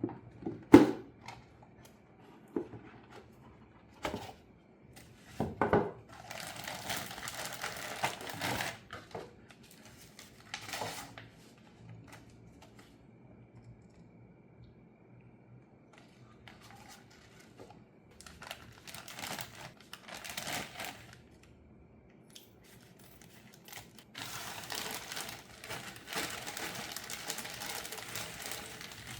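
Hands unpacking a jigsaw puzzle: a few sharp knocks, then two stretches of crinkling plastic packaging with small pieces rattling.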